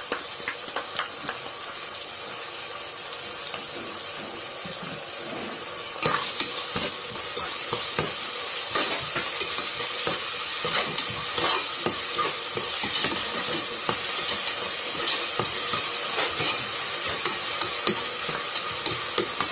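Onions and ginger-garlic paste sizzling in hot oil in an aluminium pressure cooker, stirred with a steel slotted spoon that scrapes and ticks against the pot. The frying gets louder about six seconds in.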